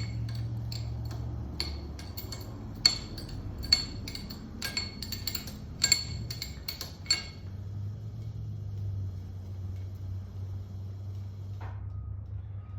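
Steel open-end wrench clinking and ringing against the jaw mounting screws and steel plate as the screws are run up: about a dozen irregular, sharp metal clinks that stop about seven seconds in. A steady low hum runs underneath.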